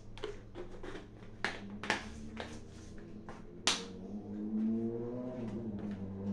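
Clicks and knocks of plastic seasoning jars being handled and set down on a kitchen counter, a quick irregular run with the loudest knock a little over three and a half seconds in.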